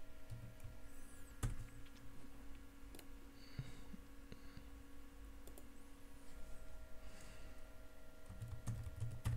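A few sparse, sharp clicks from a computer keyboard and mouse while code is edited, the strongest about a second and a half in, over a steady low electrical hum.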